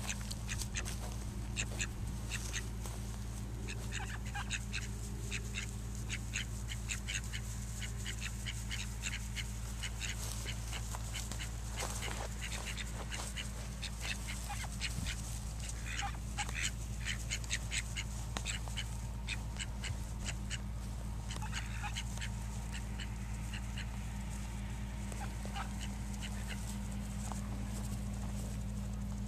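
Call ducks quacking: quick runs of short, sharp quacks, with pauses between the runs.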